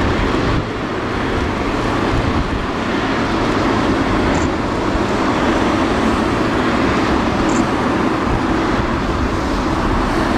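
Steady jet engine noise from the Boeing 777-300ER's GE90 turbofans as the airliner moves slowly along the ground, dipping slightly about half a second in.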